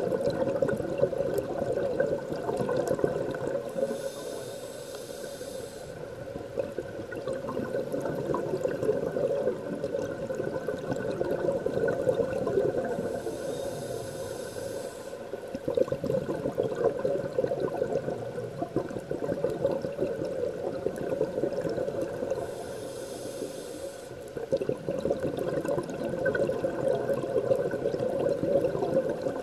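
Scuba diver breathing through a regulator: three short hissing breaths in, about nine seconds apart, each followed by a long stretch of bubbling and crackling as the exhaled air escapes.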